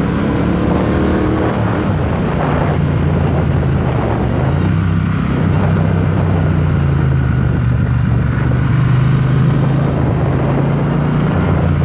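Triumph Speedmaster 1200's 1200 cc parallel-twin engine running under way at road speed. It rises in pitch over the first second or so as the bike accelerates, then holds steady, with wind and road noise over the on-board camera.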